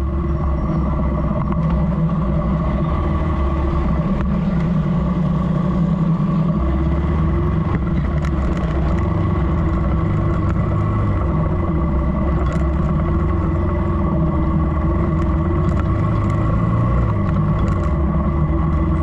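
Motorcycle running steadily while being ridden, heard from the rider's seat with a heavy low rumble of wind and road noise on the microphone.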